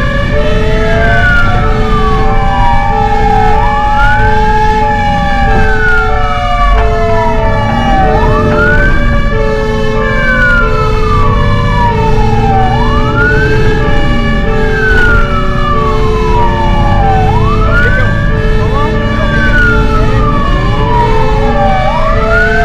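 Fire engine siren in a wail pattern, rising quickly and falling slowly about every four and a half seconds. Under it are a slower second siren glide and a steady pulsed beep about twice a second, over low engine rumble.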